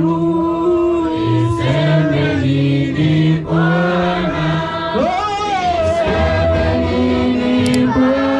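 A praise-and-worship choir singing a gospel song together in held notes over a steady low backing. One voice swoops upward about five seconds in.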